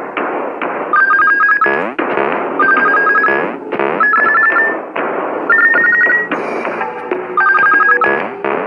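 Electronic ringtone-like trill: short, slightly rising warbling bursts repeated about every one and a half seconds over a loud, noisy musical background.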